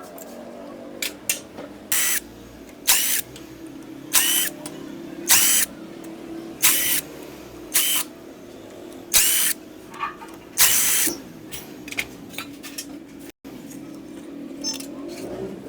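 A handheld power tool running in about eight short bursts, roughly one every second and a bit, as the bolts of a motorcycle engine's clutch-side cover are undone. A steady low hum runs underneath, with a few small clicks.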